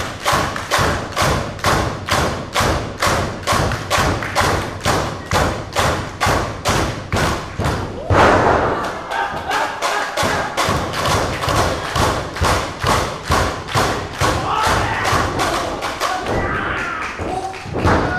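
Audience clapping in steady unison, nearly three claps a second. About eight seconds in, one louder, heavier impact breaks the rhythm, a wrestler hitting the ring mat, and then the clapping picks up again.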